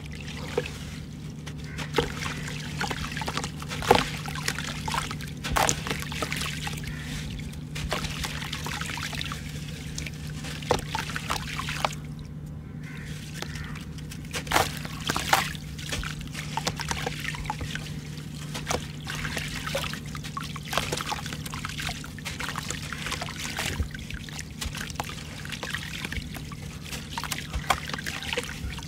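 Gritty sand crumbled by hand from a crumbly sand block, pouring and trickling into a basin of water. Many small crunches and a few louder snaps come as the block is squeezed and broken, over a steady low hum.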